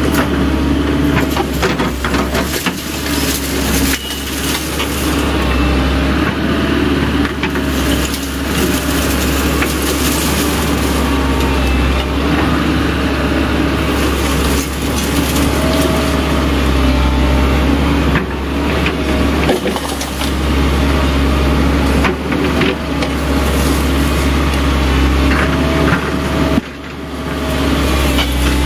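Volvo EC140B excavator running steadily under working load, with repeated metallic clanks and scraping as its bucket and thumb drag and roll up old chain-link fencing. The sound drops briefly near the end, then picks up again.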